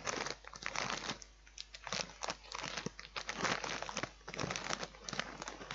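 Plastic snack packet crinkling and rustling in irregular bursts as a hand rummages through it for pieces.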